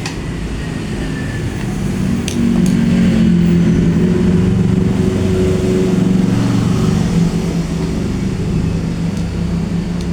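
Gas burner of a homemade deep fryer lit and burning with a steady low rumble that grows louder about two seconds in.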